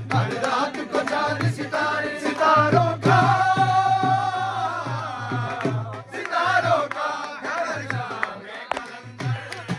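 Manqabat, a devotional song, sung over steady hand-drum beats. About three seconds in, the voice holds one long, wavering note.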